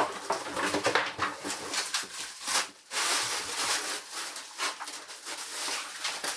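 Plastic wrapping on a rolled foam mattress rustling and crinkling in irregular bursts as hands grip, turn and pull at it.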